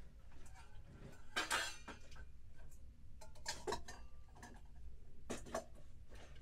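Kitchenware being handled, clinking and clattering in a few short bursts.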